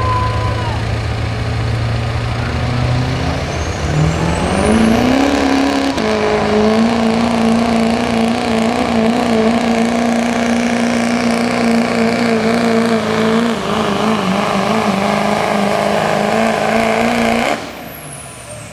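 Chevrolet Silverado pulling truck's Duramax turbo-diesel V8 hauling a weight-transfer sled: it runs low at first, revs up about four seconds in, and holds high, steady revs under full load for about eleven seconds before it is let off suddenly near the end. A full pull down the track.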